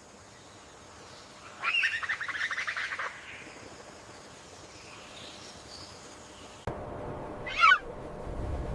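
Birds calling: a rapid rattling trill lasting about a second and a half, then fainter calls. After an abrupt change in the background comes one short, loud call that falls sharply in pitch.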